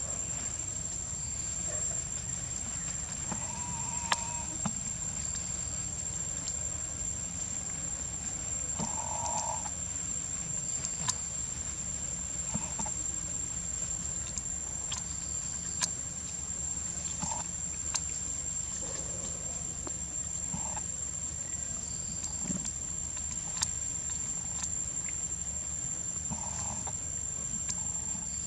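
Baby macaque monkeys giving short cries every few seconds, over a steady high whine.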